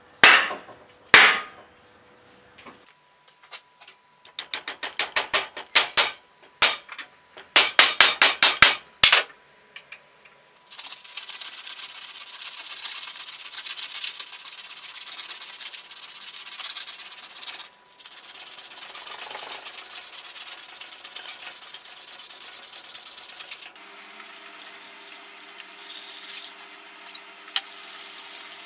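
A couple of sharp knocks, then quick runs of light tapping, then long steady rasping of a hand file working the end of a new ash hammer handle flush with the hammer head.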